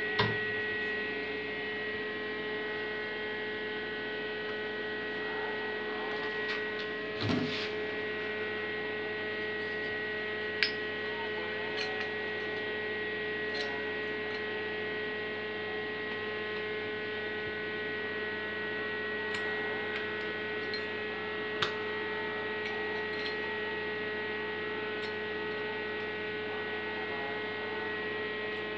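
Steady electrical mains hum, the AC transformer of a homemade spot welder energised, with a few sharp metallic clicks as metal strips and pliers are handled.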